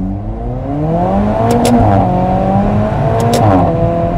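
Alfa Romeo 4C's turbocharged 1750 four-cylinder, fitted with a sports downpipe and Titan exhaust and a remapped engine and gearbox, accelerating hard, heard from the cabin. The engine note climbs in pitch, drops with a short sharp crack at an upshift about one and a half seconds in, climbs again, and shifts once more with a crack about three seconds later.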